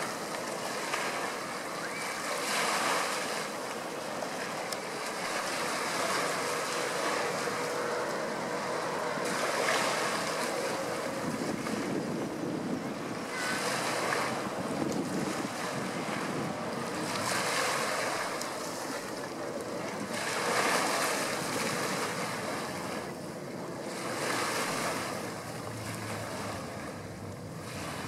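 Wind buffeting the microphone over river water washing against the bank, swelling and fading every few seconds.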